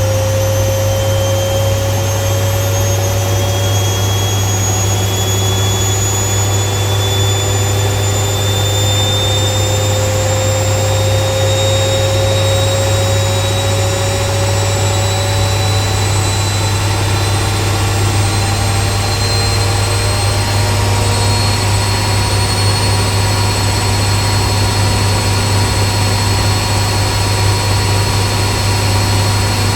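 Washing machine in its spin cycle: a steady low hum with a motor whine that climbs slowly in pitch as the drum spins up.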